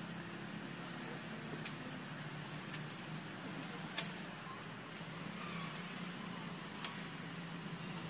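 Steady outdoor background noise, an even hiss with a low hum beneath it, broken by two sharp clicks about four and seven seconds in.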